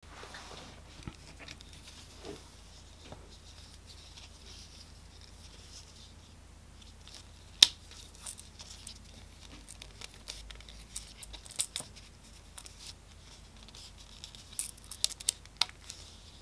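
Handling of a small leather card holder: faint rubbing and rustling of the leather, with a sharp click about seven and a half seconds in as the brass snap on the flap is pulled open, and a run of small clicks near the end as the flap is handled and snapped shut again.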